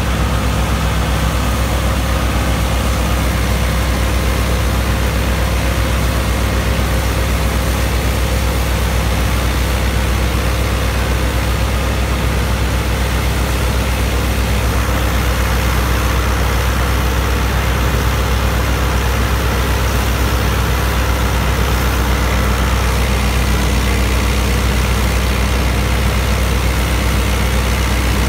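New Holland Dabung 85 tractor's four-cylinder diesel engine running steadily under load, driving a wheat straw chopper through its PTO shaft. The engine and the chopper blend into one loud, steady drone with no change in speed.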